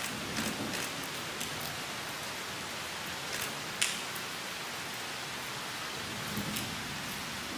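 Steady hiss of rain, with a few sharp clicks scattered through it, the loudest just under four seconds in.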